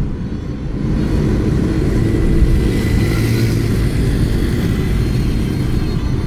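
Steady low rumble of a moving vehicle's engine and tyres on the road, with traffic around it.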